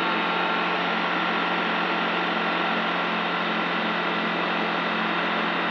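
Skyranger Swift 2 microlight's 100-horsepower engine and propeller running at climb power, heard from inside the cockpit as a steady drone.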